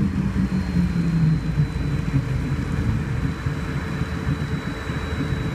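Cockpit noise of a Beechjet 400XP's twin turbofan engines during rollout after landing: a continuous rush with a thin steady high whine. A low tone falls in pitch over the first second and a half, and the level eases slightly as the jet slows.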